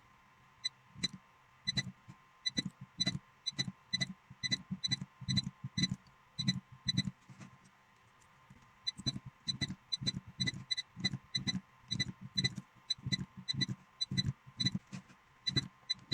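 Battery spot welder firing pulse after pulse as it welds new nickel connecting strips onto Sony C5 lithium-ion cells. Each weld is a sharp snap with a brief high tone, about two a second, with a pause of about a second past the middle.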